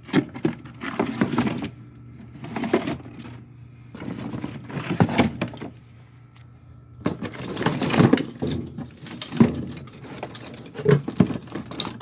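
Loose metal hardware rattling and clinking in irregular bursts as someone rummages through a stash of parts, searching for spare wheel lug bolts.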